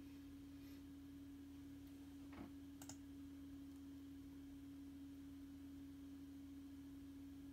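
Near silence: room tone with a steady faint low hum and two faint clicks close together about two and a half seconds in.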